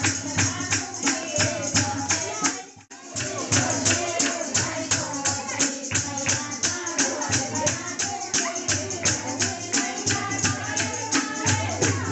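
Devotional kirtan music: singing over a fast, steady beat of sharp jingling or clapping percussion and a low drum. The music drops out for a moment about three seconds in.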